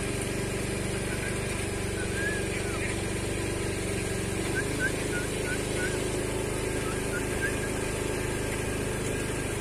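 An engine idling steadily, with a few short high chirps over it.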